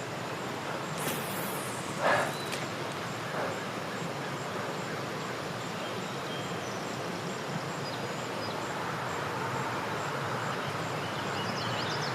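Steady rush of flowing creek water, with a short rustle about two seconds in and a few faint bird chirps near the end.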